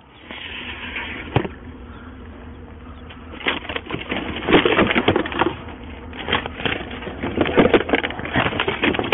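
Rummaging through gear in a vehicle's cargo area: bags, boxes and papers rustling and clattering in quick irregular clicks and knocks, busiest from about three seconds in, after a single sharp knock near the start.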